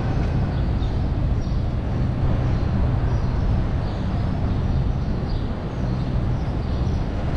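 Steady low hum and rumble of city street ambience, with faint light ticks now and then.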